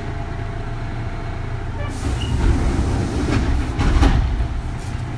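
Running noise of a Kintetsu 3200 series electric train, heard from inside a motor car: a steady low rumble of wheels on rail. About two seconds in it swells louder, with a few sharp knocks, before settling back to the steady rumble near the end.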